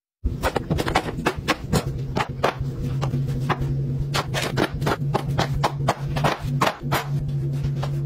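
Background music with a steady beat of sharp clicking percussion over a held low note, starting after a brief gap.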